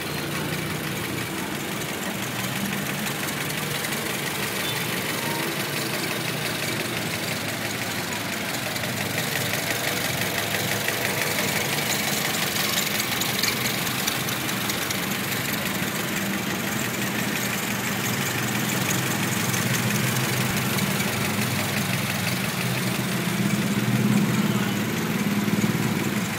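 A Toyota Yaris's 1.5-litre four-cylinder VVT-i engine idling steadily, heard from over the open engine bay.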